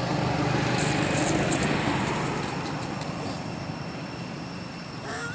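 Engine noise of a passing vehicle, a steady drone that swells over the first two seconds and then slowly fades.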